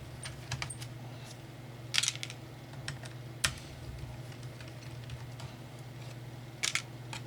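Light scattered clicks and taps of a screwdriver and small screws as the bottom screws are worked out of a Dell Latitude E6420 laptop's base. There are a few sharper clicks about 2 and 3.5 seconds in and again near the end, over a steady low hum.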